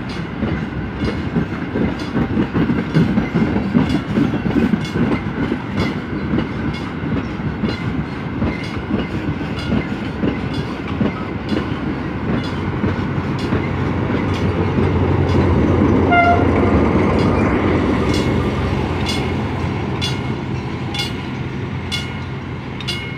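Loaded freight wagons rolling past with a steady clickety-clack of wheels over rail joints, then the rear banker locomotive, a TCDD DE 24000-class diesel-electric, passes with its diesel engine's low drone swelling and then fading. A brief high-pitched tone sounds about two-thirds of the way through.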